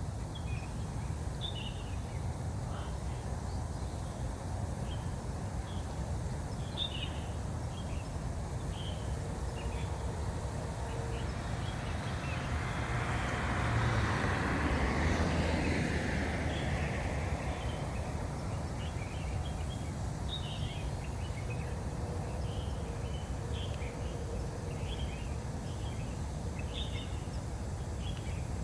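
Outdoor ambience: small birds chirping on and off over a steady low rumble, with a vehicle passing about halfway through, its sound swelling and fading over several seconds.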